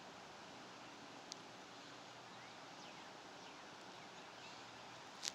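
Near silence: quiet background with a few faint high chirps, a faint click about a second in, and a short sharp sound right at the end.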